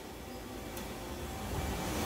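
Steady machine hum of a CNC lathe shop, with a faint click about three-quarters of a second in, growing louder near the end.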